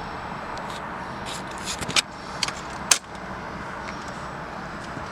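A few light clicks and rattles and one sharp knock just before three seconds in, over a steady background hum.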